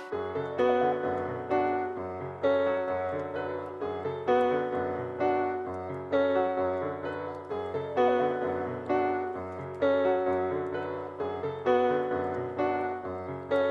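A dark, slow keyboard melody loop in a piano or electric-piano voice. It plays struck notes that fade out, about two a second, over a held low bass note, with no drums.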